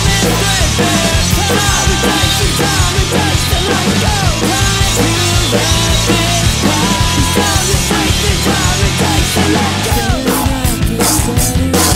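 Acoustic drum kit played hard along with a loud, fast rock song with distorted guitars. From about ten seconds in, the drum hits stand out more sharply.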